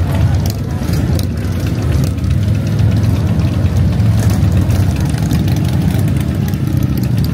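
Motorcycle engine idling at a steady, even pitch, with no revving.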